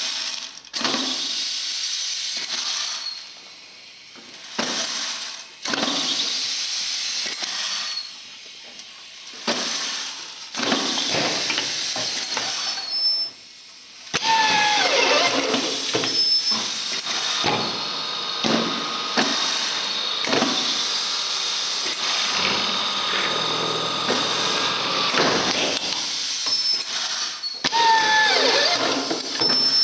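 Schirmer Powasert through-feed screwing machine driving screws into a window profile: its screwdriver motor runs in bursts a few seconds apart, then more continuously and louder from about halfway, with hisses of compressed air from its pneumatics.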